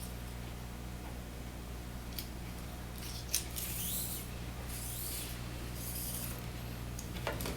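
Faint scraping and rustling as shade cord is worked through a plastic cord lock, in short scratchy spells, over a steady low electrical hum.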